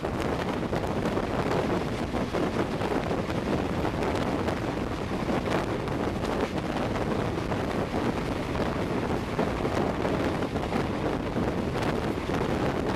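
Wind buffeting the microphone at the open door of an express train coach running at about 105 km/h, over the steady rush and rapid ticking clatter of the coach's wheels on the rails.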